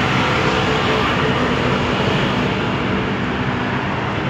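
Street traffic noise: a motor vehicle's engine running with a steady low hum over an even wash of road noise.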